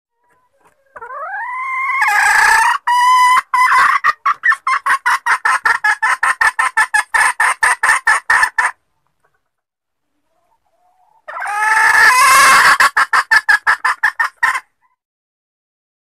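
Jungle fowl hen calling: a drawn-out rising note runs into a long string of rapid clucks, about five a second. A second, shorter bout follows after a pause of about two and a half seconds. It is a hen's call of the kind used to lure jungle fowl roosters.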